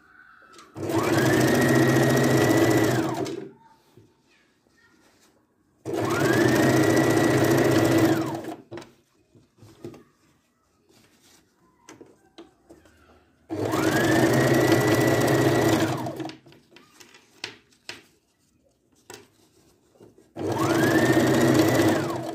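Electric sewing machine stitching along a zipper with a zipper foot, in four runs of about two to three seconds each; each run rises in pitch as the motor speeds up, holds steady, then drops as it stops. Small clicks and rustles of fabric handling fill the pauses between runs.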